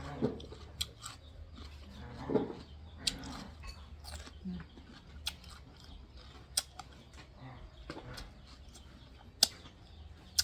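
A person eating: chewing and mouth smacks with scattered sharp clicks, a few of them louder, spread irregularly through the stretch.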